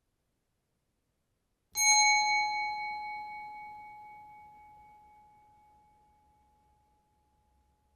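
A bell struck once about two seconds in, giving a clear high ring that fades away slowly over about five seconds.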